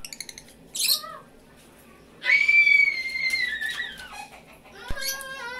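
Caged lovebirds calling: quick chirps, then a long shrill call that falls slightly in pitch about two seconds in. A sharp knock near the end.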